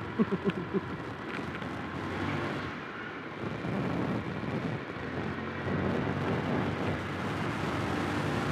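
Honda Vario 150 scooter's single-cylinder engine running under way, with road and wind rush, as the scooter picks up speed. The engine note swells and eases a few times.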